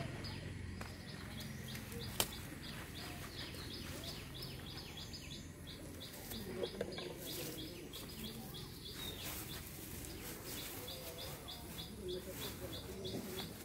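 A regular series of short, high chirps, about three a second, from a small calling animal. The chirps pause in the middle and then resume, over a low steady background. There is a single sharp click about two seconds in.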